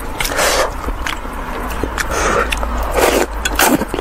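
Soft noodles being slurped and chewed close to the microphone: a few wet slurps, the strongest ones near the end.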